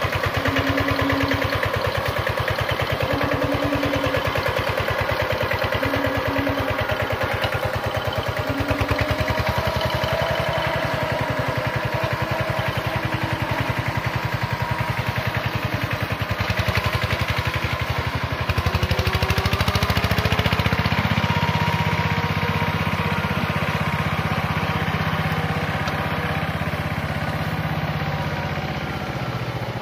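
Kubota K75 walking tractor's single-cylinder diesel engine running steadily with an even, rapid firing beat as it pulls a trailer loaded with coconuts. The engine gets louder and heavier about two-thirds of the way through.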